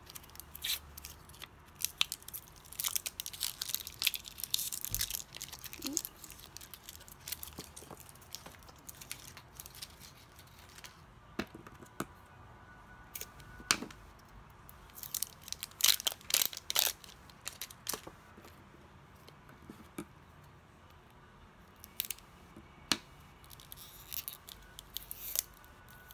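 Rolls of washi tape being unwrapped and handled: packaging tearing and crinkling in irregular bursts of crackles and clicks, with quiet gaps between them.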